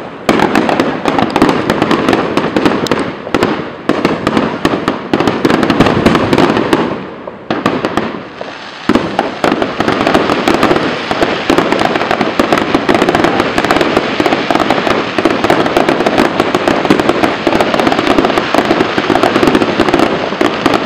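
Fireworks display: a dense run of overlapping bangs and crackling, easing briefly about seven seconds in before filling back in just as thickly.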